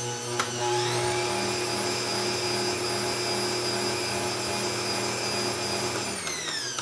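Bosch Compact Kitchen Machine stand mixer running with its wire whisk beating cake batter: a steady motor whine. After a click about half a second in, it speeds up to a higher pitch. Near the end it is switched off and the whine falls as the motor spins down.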